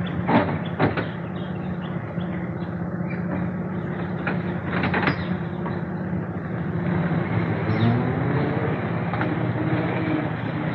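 Vintage car engine running, with a few sharp knocks near the start and about five seconds in, then rising in pitch as the car pulls away.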